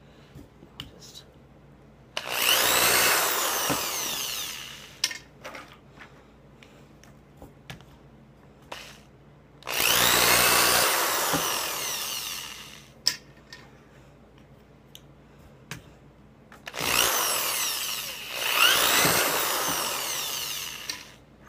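Craftsman power drill running in four bursts of two to three seconds, boring holes through plastic bottle caps held in a wooden drilling jig. Between the bursts come small clicks and knocks as caps are placed in the jig.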